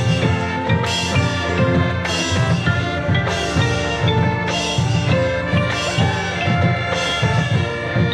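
High school marching band playing its field show: sustained brass and wind chords over drumline percussion, with a strong accented hit about once a second.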